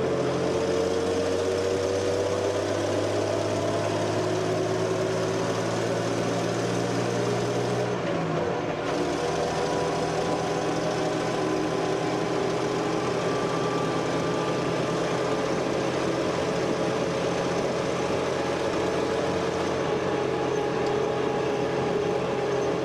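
Vehicle engine running steadily, its pitch drifting slowly up and down; a low hum underneath drops out about eight seconds in.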